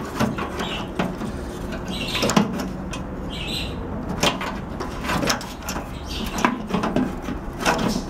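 Scattered clicks and knocks of a microwave's black plastic door-interlock switch bracket being handled and turned over by hand, wires still attached. A few short bird chirps are in the background.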